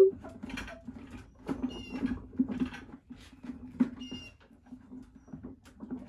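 Scattered knocks and clatter of parts being handled on the plucker's pulley and shaft assembly, with two brief high-pitched squeaks, about two seconds in and about four seconds in, over a steady low hum.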